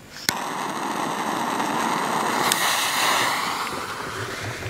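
A firework fuse is lit with a lighter: a sharp click, then the burning fuse gives a loud, steady hiss that grows over about two seconds and then fades.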